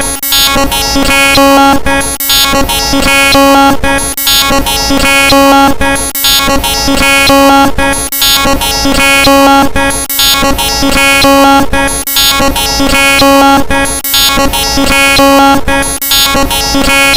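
Loud electronic synthesizer music, a looped phrase that repeats about every two seconds with a short dip at each repeat.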